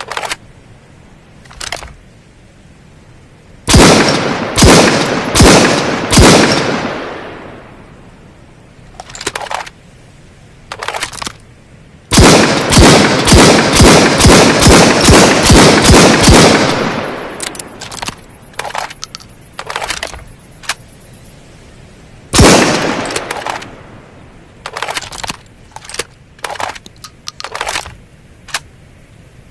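Dragunov semi-automatic sniper rifle firing its 7.62×54mmR rounds: four shots about a second apart, each with a long echoing tail, then about a dozen shots in quick succession at roughly three a second, and one more shot near the end. Quieter mechanical clicks and rattles fall between the volleys.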